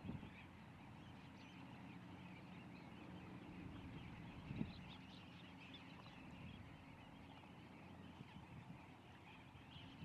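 Faint, distant chorus of many waterbirds calling across a tidal mudflat, with a steady low hum underneath and one soft thump about four and a half seconds in.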